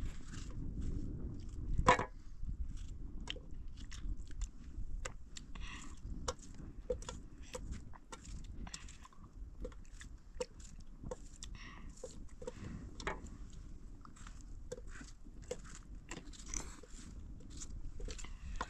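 Small irregular wet crackles and squelches of fingers peeling and squeezing ripe tomatoes over a metal pot, with one sharper click about two seconds in, over a steady low background rumble.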